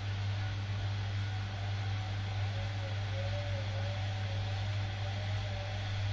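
Bosch Maxx 7 washing machine running: a steady motor hum with a noise haze over it and a thin whine that wavers up and down in pitch from about two seconds in.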